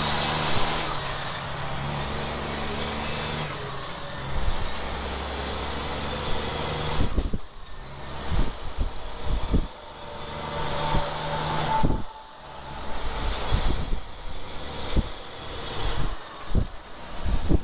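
Semi truck's diesel engine heard from inside the cab, running steadily under load as the truck picks up speed. The engine note drops away briefly about seven seconds in and again about twelve seconds in, as gears are shifted, with a few sharp knocks and rattles in the later part.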